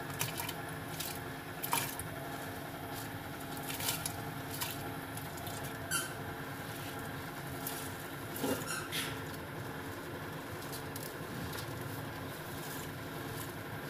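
A hand sweeping wet rice across a steel tray into a cooking pot: irregular scrapes and soft clicks of grains and fingers on the metal, with a couple of short rising squeaks about six and nine seconds in.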